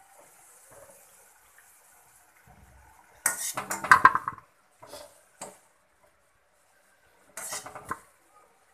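Perforated metal skimmer clattering and scraping against a metal wok as fried bajjis are lifted out of the oil. There is a loud burst about three seconds in, two short clicks, and another burst near the end, with a faint sizzle of oil at the start.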